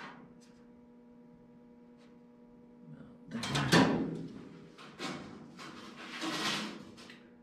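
Steel tape measure being pulled out and handled across a pickup bed: two stretches of sliding, scraping and rattling, the louder about three and a half seconds in, the second near the end. A steady low hum runs underneath.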